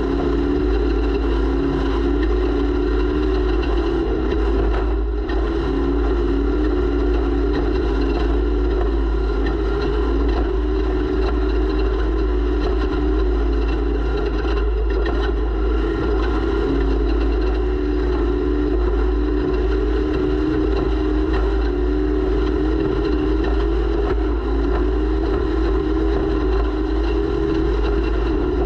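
Off-road race vehicle's engine running hard at fairly steady high revs, heard onboard, its pitch wavering slightly, over a heavy low rumble of wind and terrain.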